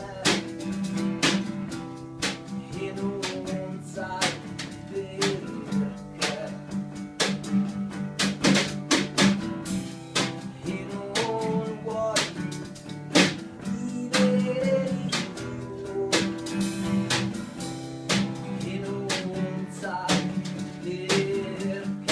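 A band playing a song, led by regularly strummed acoustic guitar over sustained lower notes.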